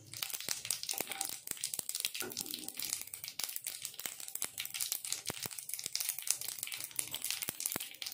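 Mustard seeds crackling and popping in hot oil, a dense, irregular run of sharp pops over a sizzle: the seeds spluttering as a tadka (tempering) starts.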